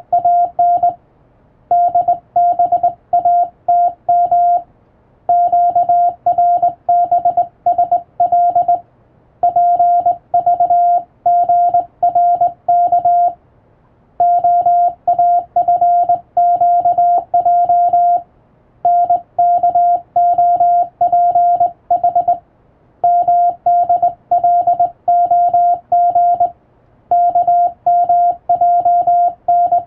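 Hand-keyed Morse code: a steady single-pitch sidetone keyed on and off in dots and dashes, sending English-text Morse from a telegram practice book in runs of several characters split by short pauses.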